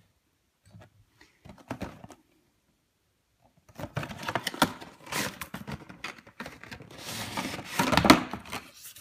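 Cardboard action-figure box being opened by hand: a few light clicks in the first two seconds, then from about four seconds in a busy run of cardboard and packaging rustling, scraping and clicking as the figure is slid out on its insert, loudest near the end.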